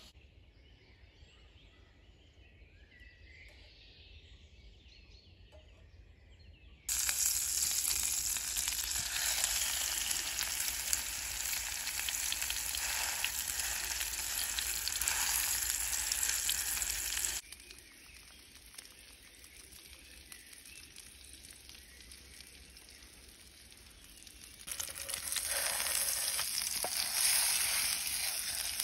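Beef steak sizzling in hot oil in a frying pan over a wood fire, pressed down with a wooden spatula. After a few quiet seconds the loud sizzling starts suddenly, drops away about halfway through, and comes back strongly near the end.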